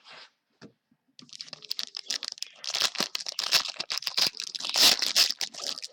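A trading card pack wrapper being torn open and crinkled, starting about a second in and growing into dense crackling.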